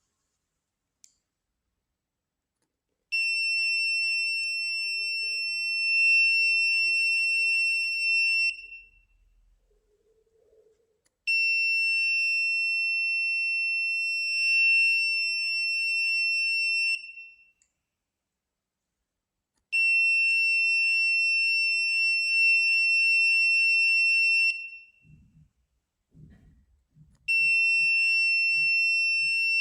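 Buzzer of an Arduino Uno gas leak alarm sounding in long, steady, high-pitched beeps of about five seconds each, separated by pauses of two to three seconds. There are three full beeps and a fourth that starts near the end. The alarm signals gas detected by the MQ-4 sensor.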